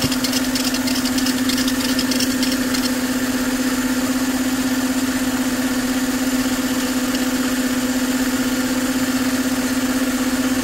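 Mercedes M272 V6 engine idling with a steady low hum, and a fast, rhythmic high-pitched chirping from the serpentine belt at the harmonic balancer that dies away about three seconds in as water is sprayed on the balancer. Water quietening it points to the belt edge rubbing on the balancer, which the owner blames on the balancer running about 0.3 mm out of true.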